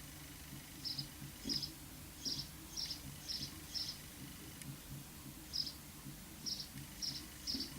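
A small bird chirping: about ten short, high chirps at roughly half-second intervals, in two runs with a pause in the middle.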